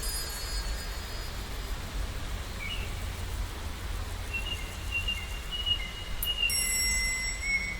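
Edited sea ambience: a steady low rumble of noise, with a few thin high tones from about three seconds in and a cluster of high ringing tones near the end.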